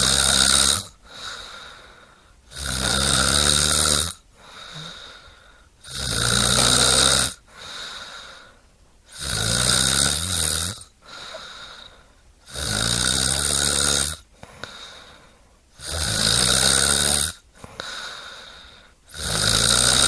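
A sleeping person snoring in a steady rhythm: a loud, rough snore about every three and a half seconds, each lasting about a second and a half, with a softer breath between them.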